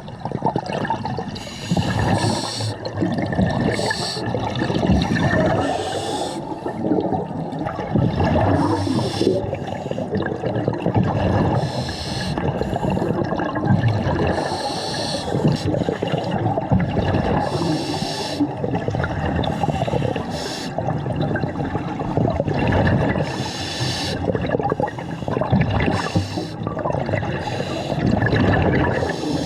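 Scuba diver breathing through a regulator underwater: the hollow rasp of inhaling and the gurgling rush of exhaled bubbles, with a fresh burst every few seconds.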